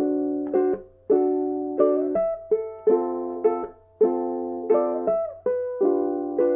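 Background music: chords strummed on a string instrument in a steady rhythm, each chord ringing and fading, with no singing.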